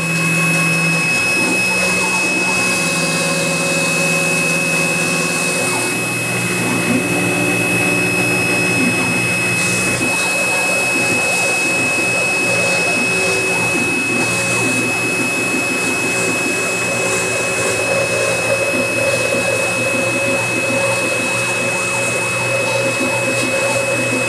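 Small CNC mill's spindle motor running with a steady high whine while the bit cuts into cardboard. The stepper motors driving the axes hum underneath, their pitch changing every few seconds as the moves change.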